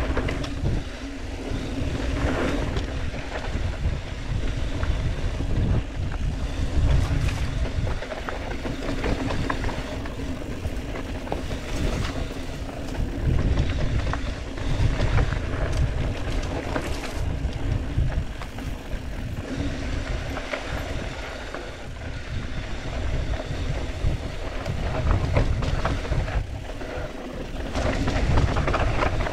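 Wind buffeting the camera microphone over the rumble and rattle of a mountain bike rolling fast down a dry dirt singletrack, with scattered sharp knocks from bumps in the trail.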